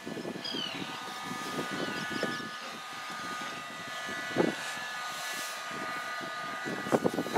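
Outdoor ambience: a steady distant engine drone holding several even tones, with a few short falling bird-like chirps about half a second in and light rustling of the handheld camera.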